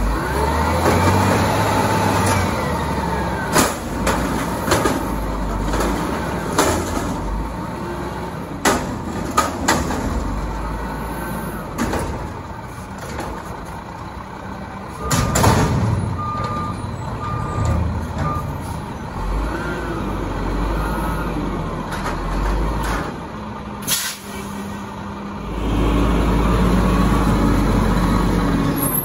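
WhiteGMC WX64 garbage truck running, its engine rising and falling in pitch, with repeated sharp air-brake hisses and a few short beeps around the middle.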